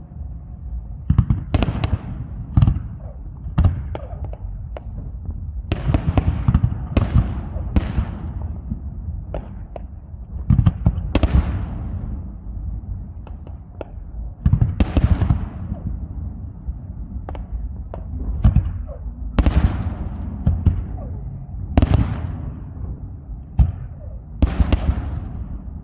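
Aerial fireworks bursting one after another, about every one to two seconds, each bang trailing off.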